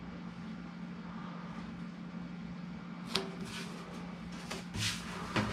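Tape being pulled off its roll and pressed around a galvanized steel duct pipe: a low steady hum at first, then about three seconds in a sharp click and several short scratchy pulls.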